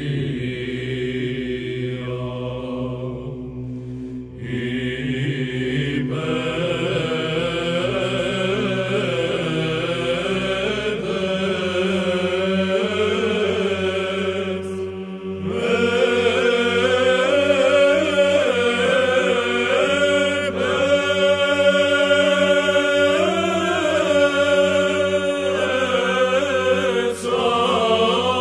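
Byzantine choir chanting a kalophonic heirmos in the plagal fourth mode. A slow, ornamented melody is sung over a steady held drone (the ison), which moves to a new pitch about eleven seconds in.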